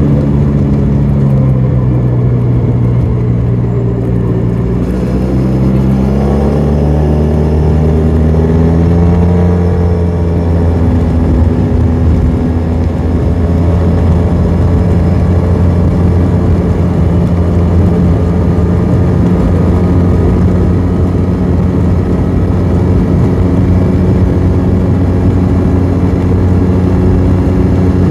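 BMW maxi scooter's engine and exhaust while riding: the engine note drops as it slows in the first few seconds, rises as it accelerates from about five seconds in, then holds steady at cruising speed, over steady wind and road noise.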